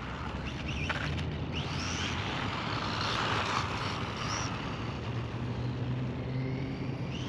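Brushless electric motor (Hobbywing 2435, 4500 KV) of a small RC monster truck running on a 3S battery, whining up in several short rising sweeps as it accelerates, over a steady rushing hiss.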